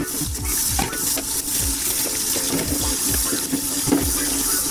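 Kitchen tap running hard into a stainless steel sink, splashing as the sink fills with soapy water and a hand swishes aquarium filter sponges in it. A regular low thump sounds about twice a second underneath.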